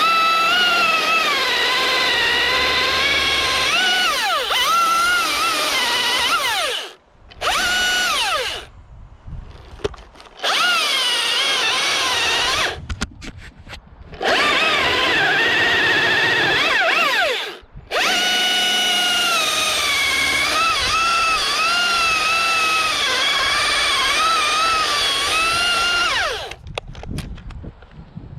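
Two-stroke chainsaw held at full throttle through several long cuts, its pitch sagging and recovering as the chain loads up in the wood. Between cuts the revs fall away briefly, about four times, and near the end it winds down off the throttle.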